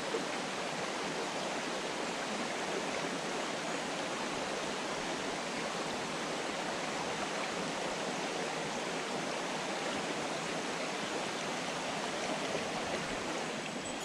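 Mountain stream water rushing, a steady even rush with no break.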